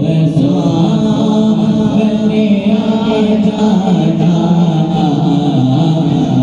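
A naat, an Urdu devotional poem in praise of the Prophet, sung in a slow, chant-like style by voices over a steady vocal drone.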